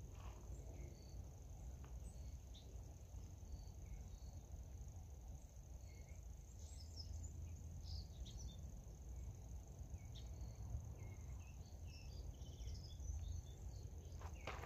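Quiet outdoor ambience: a steady high-pitched insect chorus like crickets, with scattered short bird chirps and a low steady rumble underneath.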